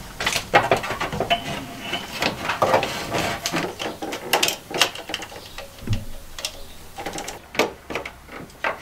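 Irregular small clicks, taps and scrapes of a screwdriver and wires being worked against a breaker in an open steel breaker panel.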